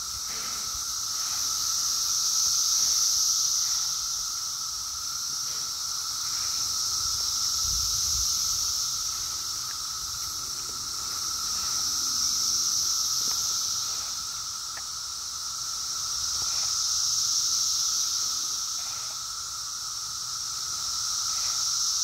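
Chorus of periodical cicadas: a loud high buzz that swells and fades in slow waves about every five seconds, over a steady lower drone.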